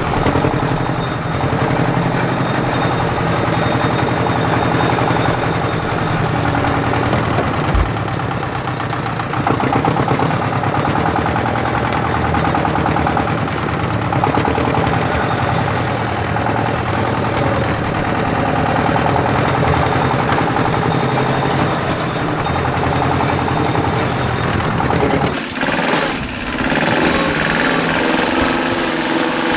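An engine running steadily with a fast, even knocking beat. The sound changes abruptly about 25 seconds in.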